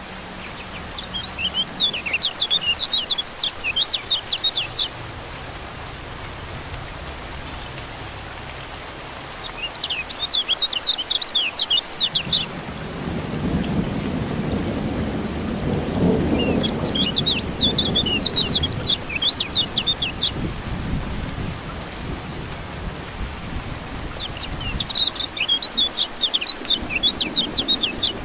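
Kecial kuning white-eye singing in four bursts of rapid, high chirping notes over steady rain, with a low rumble of thunder in the middle.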